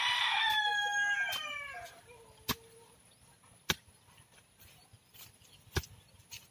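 A rooster crows once: a long call that drops in pitch at its end and dies away about two seconds in. After it, a hoe blade strikes the soil with a few sharp knocks.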